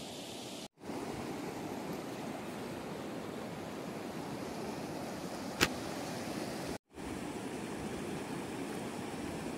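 Muddy floodwater of a wadi in spate (Oued Ferkla) rushing over its gravel bed: a steady rushing noise. It cuts out twice for a fraction of a second, and there is one sharp click a little past halfway.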